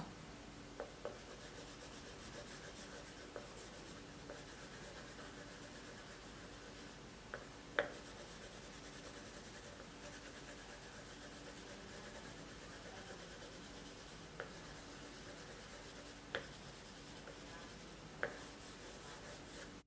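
Faint drawing strokes on paper, a steady rubbing scratch, with a few light ticks scattered through it.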